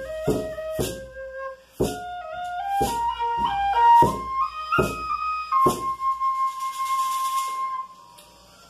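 B♭ tin whistle playing a stepwise melody over single beater strokes on a large frame drum. The drum stops after its last stroke, and the whistle holds one long final note that ends near the close.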